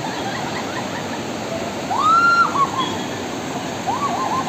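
A fast mountain river rushing steadily. A drawn-out high-pitched call rises over it about two seconds in, and a few short calls come near the end.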